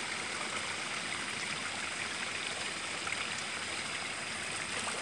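A river or stream flowing: a steady, even rush of water.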